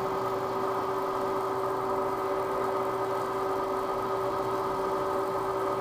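Drill press spindle running at its fastest speed, 2800 RPM: a steady machine hum with one constant whining tone, while a center drill in a sensitive drill chuck is hand-fed into a small engine cylinder head.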